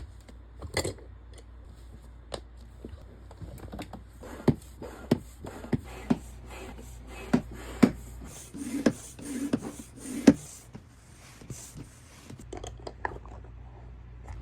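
Packaging being handled and opened: a run of sharp clicks and taps with light rustling between them, busiest in the middle.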